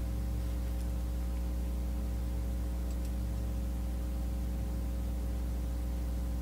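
Steady low electrical mains hum, several fixed tones over a faint hiss, picked up in the recording chain.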